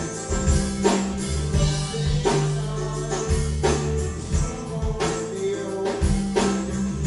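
Live rock band playing: guitars and bass over a drum kit keeping a steady beat, amplified through the bar's PA.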